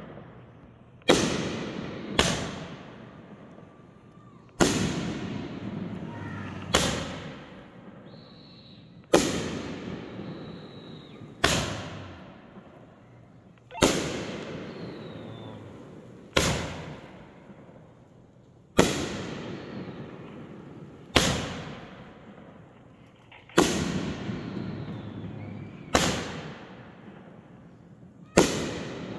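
Raccoon "Poker Race" 9-shot 500-gram firework cake firing: about a dozen sharp bangs, mostly some two and a half seconds apart, each dying away slowly over a second or two.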